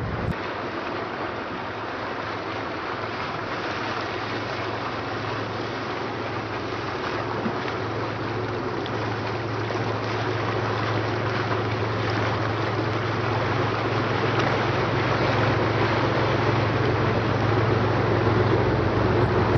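Steady low hum of a boat engine under way, over a wash of water and wind noise, growing gradually louder toward the end.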